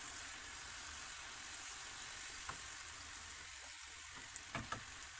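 Nimki dough pieces deep-frying in hot oil in a pot: a steady sizzle. A metal slotted spoon stirring them gives a few light clicks against the pot, mostly near the end.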